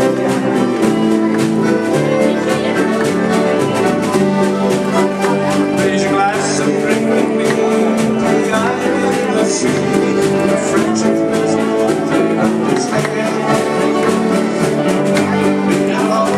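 Live acoustic band playing a folk tune: accordion with strummed ukuleles and a double bass, in a dense, steady strumming rhythm.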